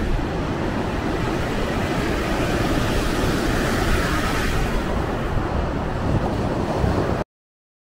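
Sea waves breaking and washing up the beach, with wind buffeting the microphone. The sound cuts off suddenly about seven seconds in.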